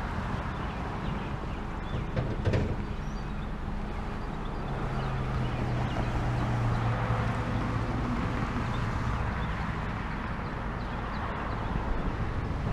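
Outdoor traffic noise. A single clank about two and a half seconds in, as a BMX bike is loaded into a pickup's bed. A vehicle's engine hums past from about five to nine seconds, swelling and fading.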